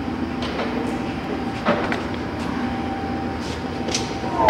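Monarch 21" x 54" heavy-duty toolroom lathe running at 532 RPM, its geared headstock giving a steady gear whine, with several sharp clicks and a clunk as the operator works the headstock controls.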